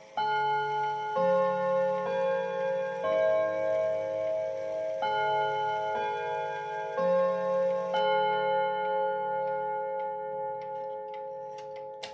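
Jauch German chime clock playing two four-note phrases, about one note a second with a pause between the phrases. Each note rings on, and the last fades slowly.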